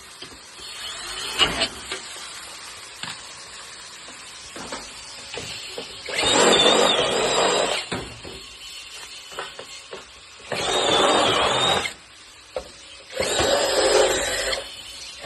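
A small power tool running in three bursts of about a second and a half each, with a high whine that wavers. Scattered clicks and knocks come between the bursts.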